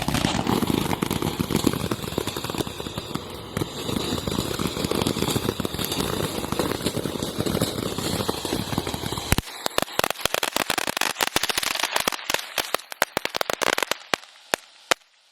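Consumer firework going off with a dense, steady crackle. About nine seconds in, the crackle stops suddenly and a run of separate sharp pops follows, thinning out towards the end.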